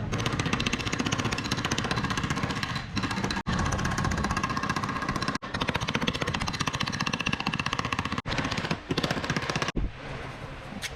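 Rapid, steady mechanical hammering, many strikes a second like a power tool, which stops abruptly for a moment several times. Near the end it gives way to something quieter.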